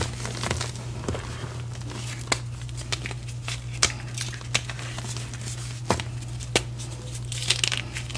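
Bare hands crushing reformed gym chalk: a steady dry crumbling and crunching of soft chalk chunks and powder, with several sharp snaps as harder pieces break and a denser burst of crunching near the end. A steady low hum runs underneath.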